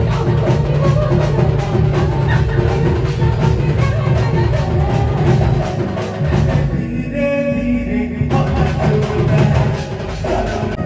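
Live Sambalpuri orchestra music over the stage PA: a drum kit keeps a quick steady beat over bass and guitar. About seven seconds in the drums drop out for a moment, leaving a few held notes, then the beat comes back in.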